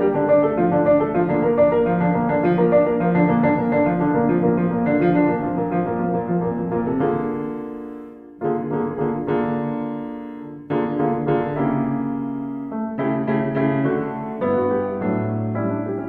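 Background piano music: a flow of quick notes, then slower held chords from about seven seconds in, each dying away before the next is struck.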